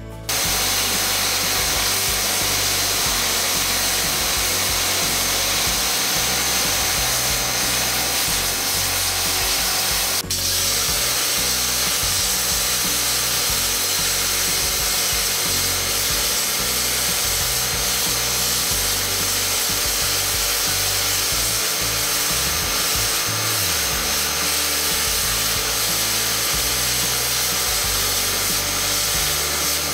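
High-pressure washer jet blasting water onto a metal link rain chain: a steady hiss of spray that starts suddenly just after the beginning, with one brief dip about ten seconds in.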